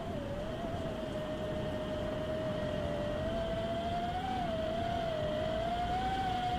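FPV quadcopter's brushless motors whining as it flies, one steady pitch that wavers gently up and down with the throttle, over a low rush of wind on the microphone.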